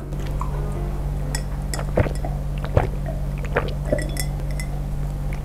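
A person drinking from a tall glass, gulping several times, over a steady low hum.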